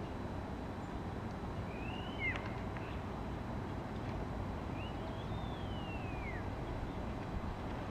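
Steady rumble of distant road traffic, with two high whistling calls that each rise and then fall, about two seconds in and again about five seconds in.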